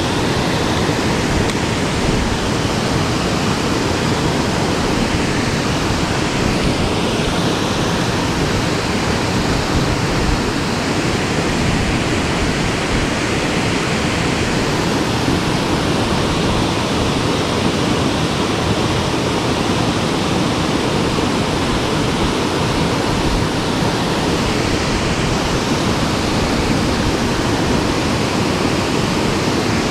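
Water pouring over a concrete sabo check dam on a mountain stream: a steady, loud rush with no let-up.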